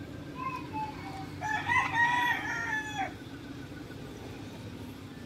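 A bird call: a few short chirps, then one loud drawn-out call of about a second and a half that drops off at its end, over a low steady hum.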